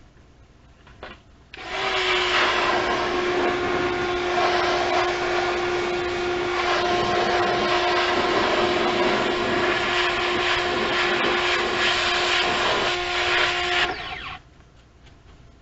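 A motor-driven machine switches on about a second and a half in and runs steadily with a constant hum over a loud hissing rush, then switches off near the end.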